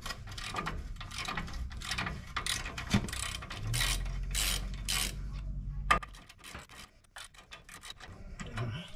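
Socket ratchet clicking in short strokes on the upper ball joint bolts of a 1995 Nissan Hardbody's front suspension as the joint is removed. The clicking turns quicker and quieter over the last three seconds.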